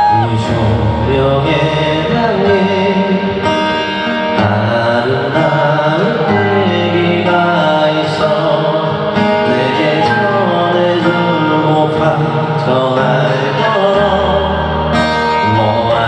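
Live band music played through a large arena's sound system, with steady bass notes and sustained chords.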